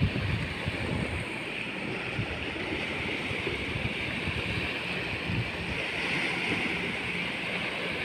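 Steady wash of small waves on a sandy shore, with wind buffeting the microphone in irregular low rumbles.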